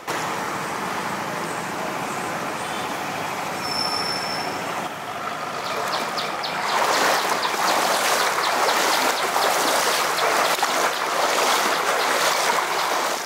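Steady rushing of fast-flowing floodwater, growing louder about six and a half seconds in.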